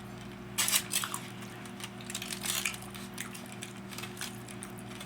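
Eating utensil clinking and scraping against a plate of food, a cluster of taps about half a second in and scattered lighter ones after, over a faint steady hum.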